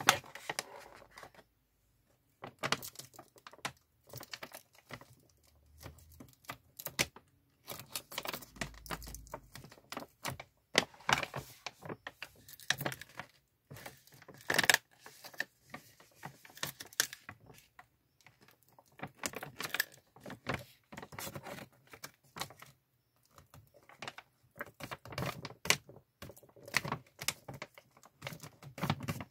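Plastic snack bag crinkling and crackling as hands fold and crease it, in irregular spells with brief pauses.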